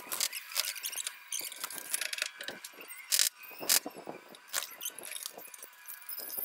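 Fast-forwarded sounds of hand work on a shed roof: a rapid jumble of clicks and knocks mixed with high, squeaky chirps, with two louder hits a little past the middle.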